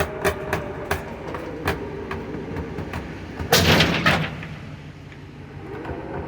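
Water heater being dragged out by a tow truck's pull, with a steady mechanical hum and repeated sharp clicks and creaks. About three and a half seconds in comes a loud crash lasting most of a second, after which the hum fades.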